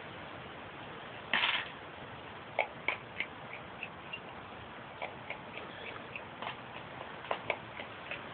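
A raccoon eating from a plastic bowl: irregular small clicks and crunches of chewing and of the bowl being knocked, with one short, louder noise about a second and a half in.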